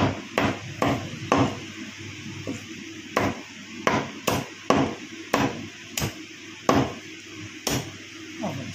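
Steel meat cleaver chopping skinless chicken through the bone into small pieces on a wooden butcher's block: sharp chops about one to two a second, irregularly spaced.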